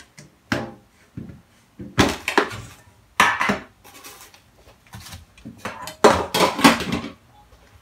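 Rummaging and handling noises in several separate bursts: objects clattering and being moved about while a roll of elastic in a plastic wrapper is fetched, with the loudest clatter as the roll is set down on the kraft paper about six seconds in.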